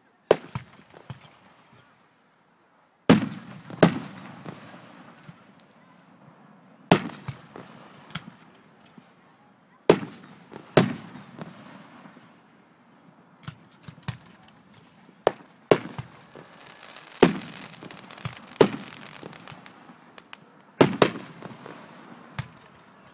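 Aerial fireworks shells bursting: about a dozen sharp booms one to three seconds apart, each with a short rumbling echo, and a stretch of hiss about two-thirds of the way through.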